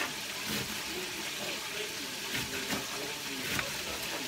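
Kitchen knife chopping rolled-up cabbage leaves on a cutting board, a few irregular strikes, over the steady sizzle of cabbage frying in bacon grease.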